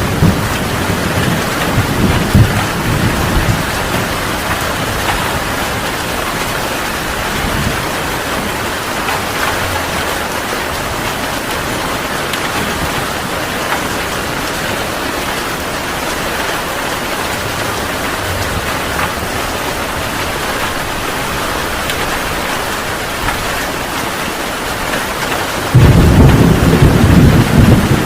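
Heavy rain falling steadily in a thunderstorm. Low thunder rumbles in the first few seconds, then a loud roll of thunder breaks in suddenly near the end.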